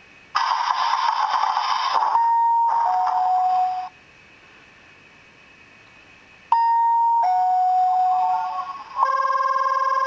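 The Keihan 5000 series commemorative alarm clock plays its electronic alarm melody through a small speaker: a short burst of hiss, then a high-then-lower two-note 'ding-dong' chime. After a few seconds' pause a second two-note chime sounds. About nine seconds in, a steady buzzy ringing tone begins.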